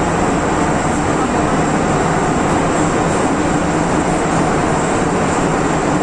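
MTR M-Train heard from inside the carriage, running at steady speed through a tunnel: a continuous rumble of wheels and running gear with a steady low hum.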